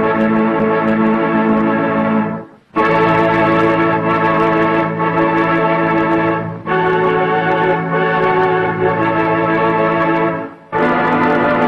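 Background organ music playing sustained, held chords. It fades briefly to a near-stop about two and a half seconds in and again near the end, then resumes.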